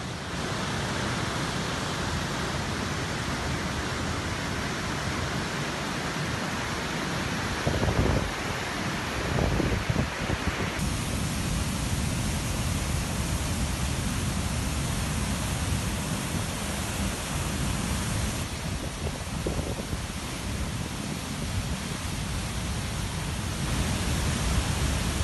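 Dam spillway discharging floodwater with all its shutters open: a steady, dense rush of white water that changes character twice, about eleven and eighteen seconds in. A few low thumps come around eight to ten seconds in.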